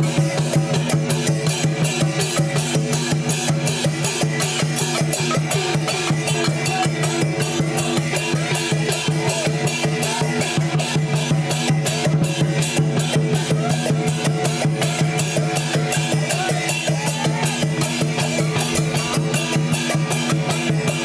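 Chinese lion-dance percussion band of drum, gongs and cymbals playing a fast, steady beat, with the cymbal and gong strokes ringing on continuously.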